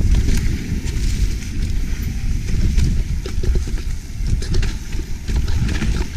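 Mountain bike riding fast down a dirt singletrack, heard from the rider's chest: a steady rough rumble of tyres on the trail and wind, with frequent clicks and rattles from the bike's chain and frame over the bumps.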